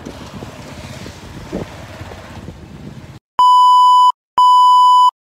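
Two long, steady TV test-pattern beeps, each under a second and a short gap apart, the loudest sound here. Before them, about three seconds of rough background noise that cuts off abruptly.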